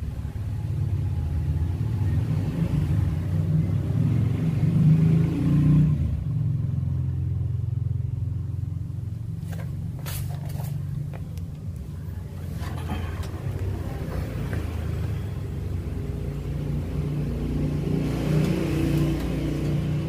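A motor vehicle's engine rumbling. It is louder in the first six seconds, eases off, and swells again near the end, with a few sharp clicks about ten seconds in.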